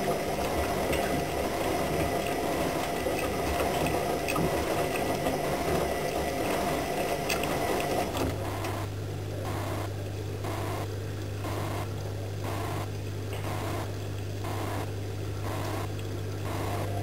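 AEG Lavamat 76730 front-loading washing machine in its wash phase: the drum motor runs as the drum tumbles wet laundry through the water, sloshing and splashing. About eight seconds in the sound changes to a steady low motor hum with an even swish about one and a half times a second.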